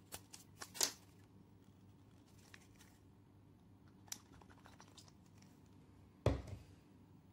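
Plastic pump dispenser of a liquid face-peel bottle clicking as its head is twisted and worked, a quick run of small clicks in the first second and another near four seconds in as it pumps. About six seconds in comes the loudest sound, a dull thud as the bottle is set down on the table.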